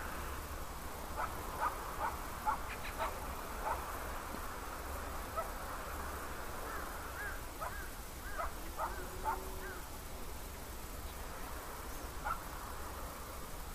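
Short animal calls, chirps or yips, coming in loose clusters through the first ten seconds with one more near the end, over a steady low hum.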